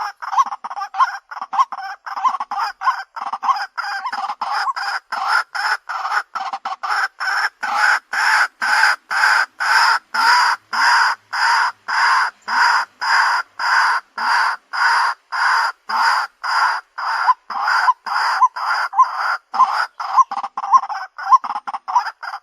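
White-breasted waterhen calling: a long, monotonous series of short repeated notes, about two to three a second, that keeps going without a break.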